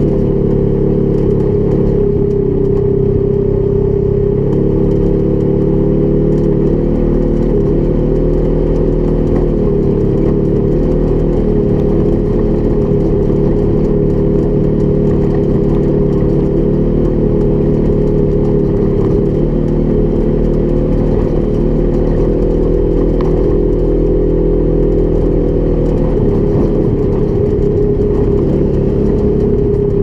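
Polaris 1000 XP UTV's twin-cylinder engine running under way, holding a nearly steady speed with small rises and dips in pitch.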